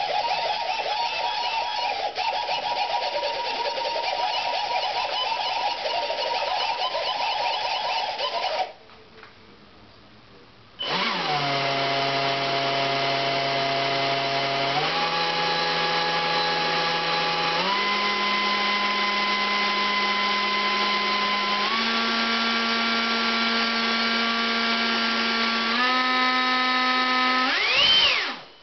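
64 mm electric ducted fan with a 4300 kV brushless motor running on the bench for a thrust check. It runs with a rough, wavering whir for about nine seconds and stops. About two seconds later it restarts as a steady whine that steps up in pitch four times, rises sharply near the end and cuts off.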